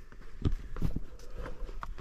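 A hiker's footsteps on a trail: several irregular steps, each a short scuff or crunch.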